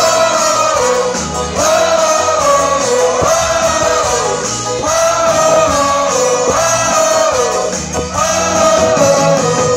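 Live band playing with singing, heard from among the audience, a short melody line repeating over and over.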